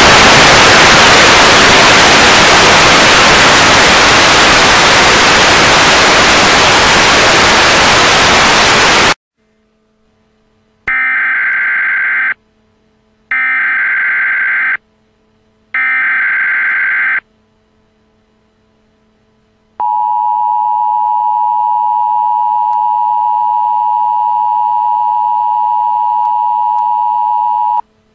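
Loud static hiss that cuts off abruptly after about nine seconds. After a short silence come three identical bursts of the Emergency Alert System's SAME header data tones, then the two-tone EAS attention signal, a steady dual tone held for about eight seconds.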